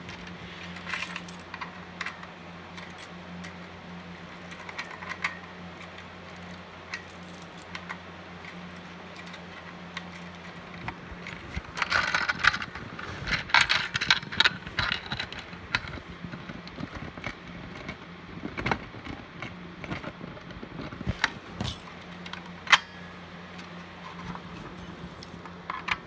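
Metal clicks and clinks from handling and opening a Notifier NBG-10 fire alarm pull station. A dense run of rattling clicks comes about halfway through, and a few sharp single clicks follow later, over a faint low hum.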